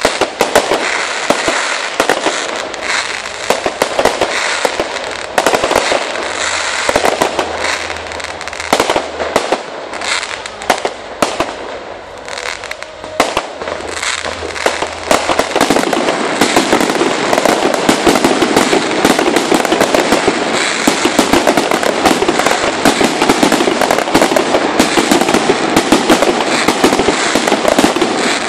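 Aerial fireworks display: a rapid string of bangs and crackling shell bursts. The explosions grow denser and more continuous from about halfway on.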